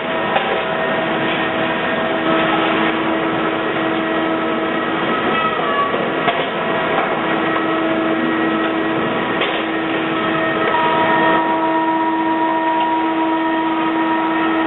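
Timber finger-jointing line running: a steady industrial machine drone with several held tones that come and go, a few short falling whines and occasional knocks as beams are fed through.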